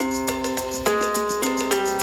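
Instrumental background music with a steady beat and plucked or struck melodic notes.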